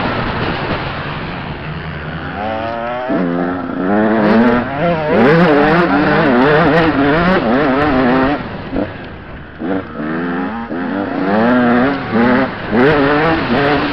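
Dirt bike engine revving up and down under hard riding, its pitch rising and falling over and over as the throttle opens and closes. The engine drops off briefly a little after halfway, then picks up again in quick bursts near the end.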